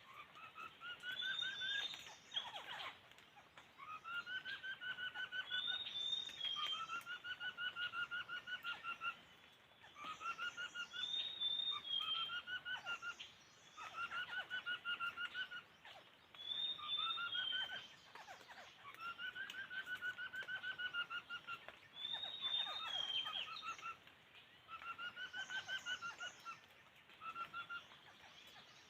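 Laughingthrush singing: loud, repeated warbling phrases, about a dozen, each a wavering whistled note with a short rising flourish, every two seconds or so. This is the kind of song a decoy bird gives to lure wild laughingthrushes to a trap.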